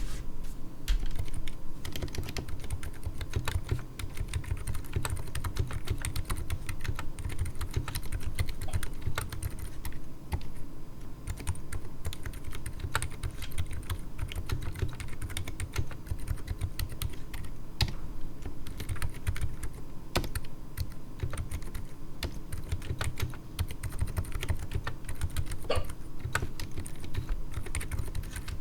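Continuous typing on a 60% mechanical keyboard with stock, unlubed Durock Daybreak silent linear switches (67 g) and XDA-profile PBT keycaps in a resin case, sitting on a bare oak desk. A dense run of low, dull key thuds.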